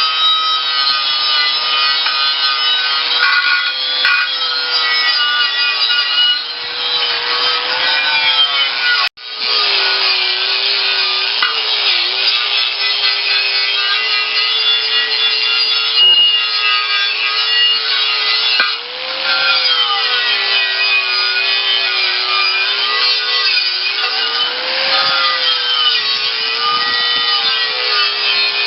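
Power sander working down a steel tractor wheel rim: a steady motor whine that sags and rises in pitch as it is pressed against the metal, over loud abrasive scraping. The sound cuts out suddenly for a moment about nine seconds in, then carries on.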